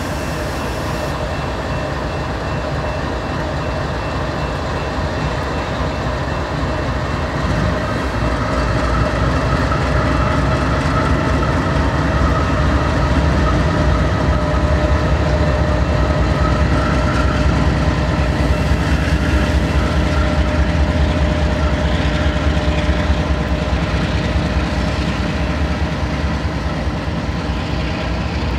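Two CN diesel-electric freight locomotives running as the train moves slowly, with a steady whine over the engine rumble. The rumble grows louder about eight seconds in.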